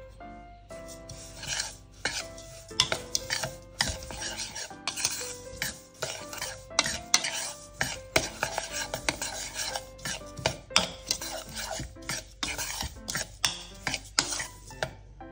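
A utensil stirring dry flour mix in a mixing bowl: quick, irregular scraping strokes with sharp clicks against the bowl, several a second.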